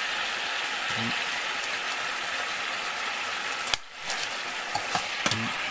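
A fried fish sizzles and bubbles in a pan of simmering fish-sauce and sugar sauce, while a metal spoon bastes the sauce over it with light clicks against the pan. The sizzle drops away briefly about four seconds in.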